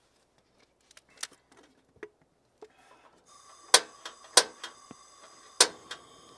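A two-burner propane camp stove being lit. Gas starts hissing a little past three seconds in, then the igniter clicks sharply three times with smaller clicks between, and the burner keeps hissing steadily. A few light knocks and clicks come first as things are handled at the tailgate.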